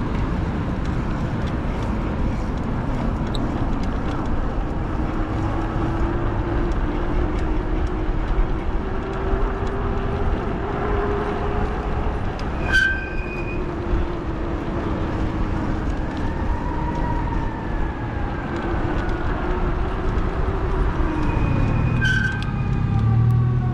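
Wind and road noise from riding a fat-tire e-bike, with a faint motor whine that drifts slowly up and down in pitch. A couple of short clicks with a brief beep come in the middle and near the end. In the last few seconds a distant fire truck siren rises and falls.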